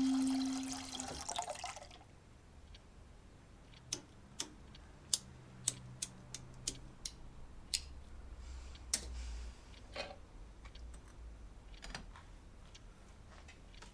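Gas hob's electric igniter clicking repeatedly, about two clicks a second, while the burner knob is held to light the burner under a pot; a brief hiss follows near the end of the clicking.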